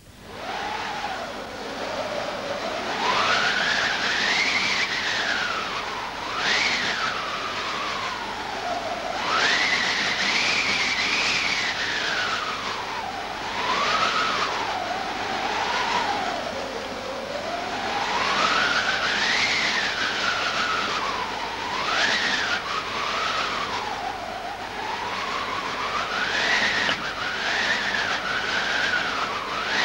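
Howling wind sound effect: a whistling tone that swells and glides slowly up and down in pitch over a steady hiss.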